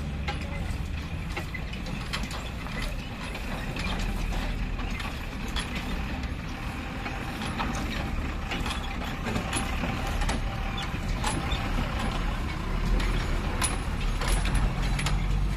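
Loaded Tata truck's diesel engine running at low revs as it crawls over a railway level crossing, with the body and chassis clattering and rattling in many short clicks as the wheels go over the rails. The low engine rumble grows louder over the last few seconds as the truck passes close by.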